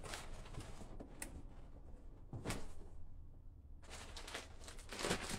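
Quiet handling sounds: a couple of soft knocks and some rustling as a cardboard box and its contents are moved about.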